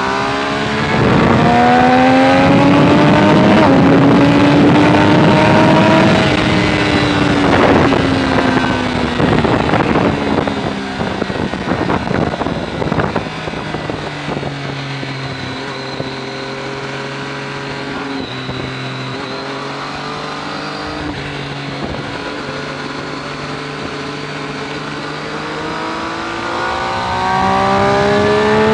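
Triumph sport bike's engine heard from the rider's seat with wind noise. It revs up under hard acceleration for the first several seconds, then drops in pitch as the throttle closes, with a run of clicks. It runs at low, part-throttle revs through a slow stretch and revs up again near the end.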